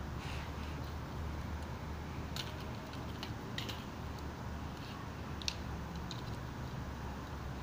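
Hard plastic Lego pieces clicking and rattling in the hands as a built model is handled and reconfigured: a few scattered clicks, the sharpest about five and a half seconds in, over a steady low hum.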